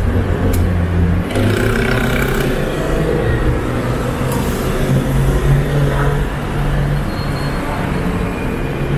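City street traffic: motor vehicles running close by, a low engine hum that shifts in pitch over a steady wash of road noise. There are two sharp clicks in the first second.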